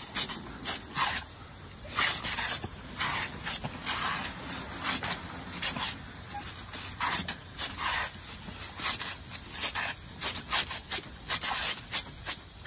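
Water sprinkler spraying, the water hissing in short, irregular bursts a couple of times a second.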